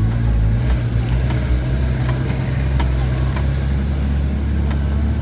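Four-wheel drive on the move, its engine and drivetrain giving a steady low drone.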